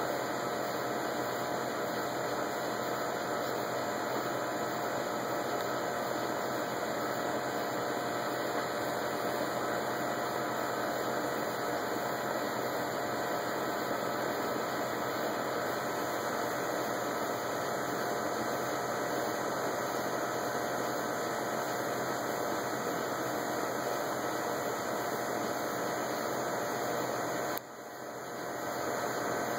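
Steady, even background noise with a faint hum of steady tones running through it, and no thunder. The level dips briefly near the end and climbs back.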